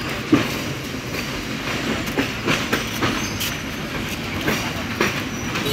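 Passenger carriages of a departing train rolling over rail joints and points, with irregular sharp wheel clacks over a steady rumble.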